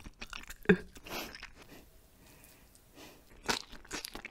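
A person biting and chewing crunchy food close to the microphone, with a few crisp crunches about a second in and again near the end.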